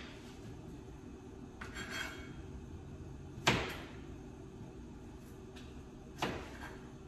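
Two sharp knocks, each ringing briefly, about three and a half and six seconds in, with a short soft rustle near two seconds.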